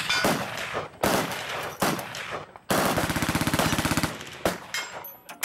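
Belt-fed Browning M1919-type machine gun firing: a few separate shots, then one rapid automatic burst lasting about a second and a half, then a couple more shots.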